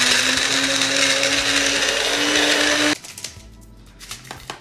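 Small personal blender running, crushing ice cubes. Its motor pitch rises slightly before it stops abruptly about three seconds in, and a few light clicks follow.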